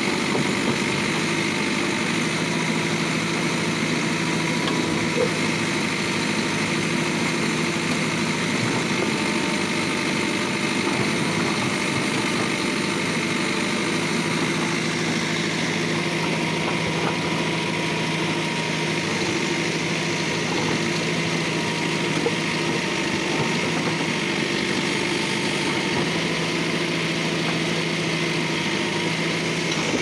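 Diesel engine of a Mahindra EarthMaster SX90 backhoe loader running steadily at close range while its backhoe arm works, with a steady higher whine over the engine note.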